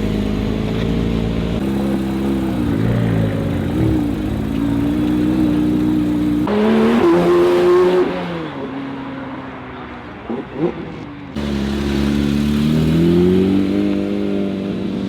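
Sports car engines revving through their exhausts in a series of short clips, the pitch rising and falling with each blip of the throttle. A couple of sharp exhaust pops come about two-thirds of the way through.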